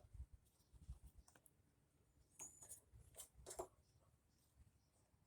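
Near silence with a few faint clicks and light handling noise as a heater control cable is worked onto its bracket on the heater box; the clearest clicks come about two and a half to three and a half seconds in.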